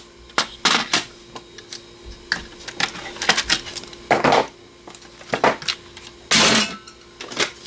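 Clicks and clatter of PC DVD drives and their parts being handled and set down, with a longer rattle about four seconds in and a louder one around six and a half seconds.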